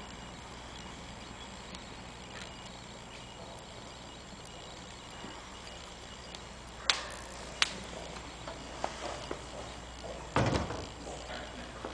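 A steady low room hum, then two sharp clicks a little past halfway, a few lighter taps, and a dull thump near the end.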